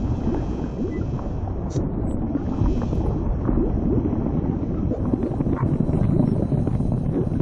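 Low, steady rumbling ambient drone of sound design, laid under an animation of the bloodstream.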